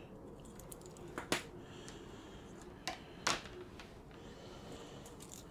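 A few sharp clicks and taps of a soldering iron and small metal parts against a wooden table, the loudest two about a second and about three seconds in. A low steady rumble of wind runs beneath.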